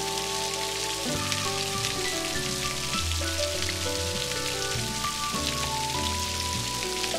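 Steady rain pattering, a dense even hiss of drops, mixed with soft background music of slow held notes that change every second or so.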